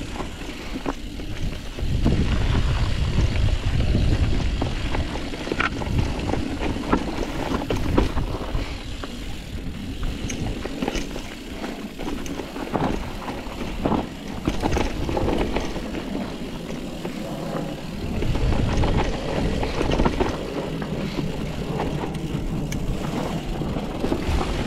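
Mountain bike ridden fast down a rooty dirt trail: tyres rolling over dirt and the bike rattling, with many sharp knocks over roots and bumps. Under it is a gusting low rumble of wind on the microphone, heaviest a couple of seconds in and again about three-quarters of the way through.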